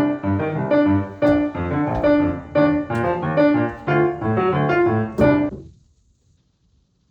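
Background piano music, playing a run of notes, that fades out and ends near the end, leaving only faint hiss.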